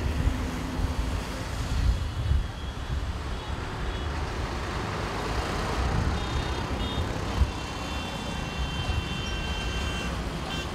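Dense city road traffic: a steady low rumble of bus, car, auto-rickshaw and motorcycle engines and tyres, with a few faint high tones about six seconds in.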